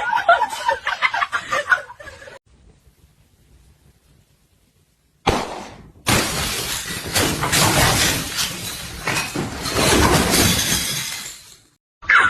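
Laughter trails off, then after a quiet pause a sudden crash breaks out into about five seconds of loud, dense clattering and breaking, as of things falling and smashing.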